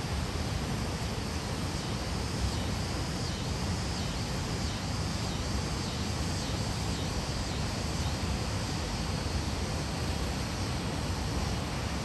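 River waterfall: water falling and rushing in a constant, deep, steady noise.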